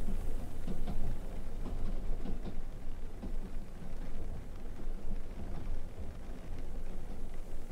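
Steady low rumbling noise with scattered faint crackles.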